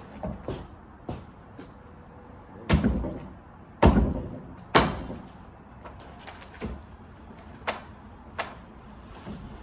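Wooden demolition debris being handled and dropped: three loud thuds about a second apart in the middle, with lighter knocks and clatter before and after.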